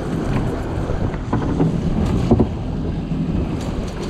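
Outboard motor running with the boat under way, water rushing past and wind buffeting the microphone, with a few light knocks.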